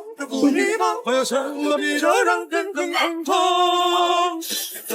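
A voice singing without accompaniment, the pitch sliding and breaking into short phrases, then holding one long steady note for about a second near the end.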